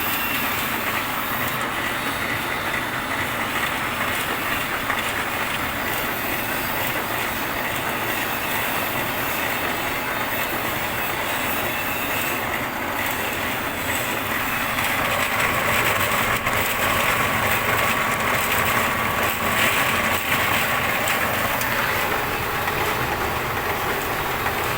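Wood pellet mill running with a steady, loud machine noise that gets a little louder about fifteen seconds in.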